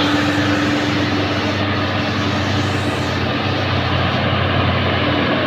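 Heavy diesel dump trucks driving past in a convoy: a steady, even engine drone with tyre noise.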